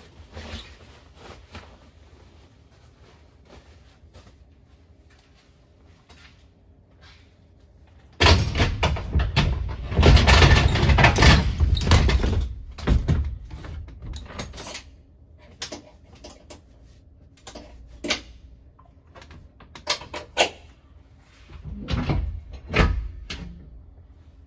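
Handling noise as a mortuary cot is pushed into the back of a cargo van. Light shuffling at first, then several seconds of loud clattering about a third of the way in, followed by scattered knocks and clunks.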